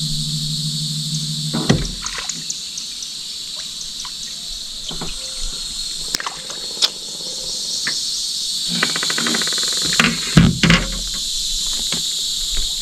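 Steady, high-pitched chorus of insects in the swamp woods. A low steady hum stops about two seconds in. Scattered sharp knocks and thumps come from handling in a small boat, the loudest about ten seconds in.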